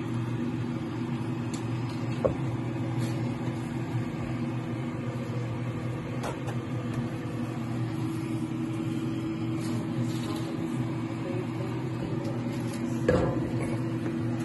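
Steady low mechanical hum while gravy is poured from a pot into a saucepan on a gas stove, with a sharp metal clunk near the end as the pot is set down on the stove grate.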